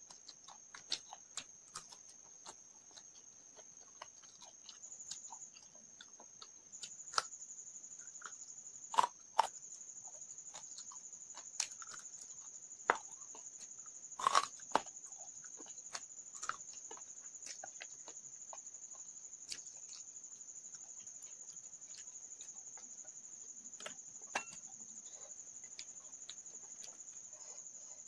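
Close-up eating sounds: chewing, wet mouth clicks and smacks as rice and fried fish are eaten by hand, with a few louder smacks about a third of the way in and around halfway. Under them is a steady high-pitched chirring of crickets.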